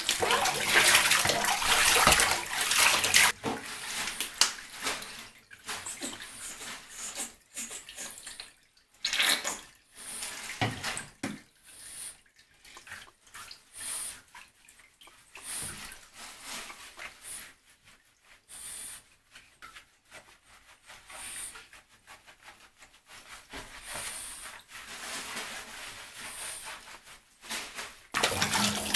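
Water pouring and splashing in a bathtub as a French bulldog is rinsed with a cup, stopping abruptly about three seconds in. Quieter scattered splashes and rubbing follow while the dog is scrubbed, and louder pouring returns just before the end.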